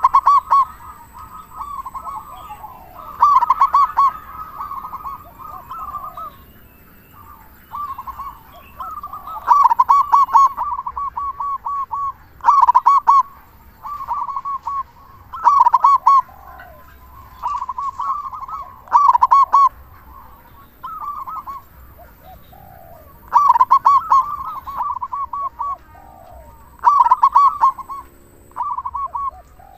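Zebra dove (perkutut) cooing: bursts of rapid, rolling notes repeated every one to three seconds.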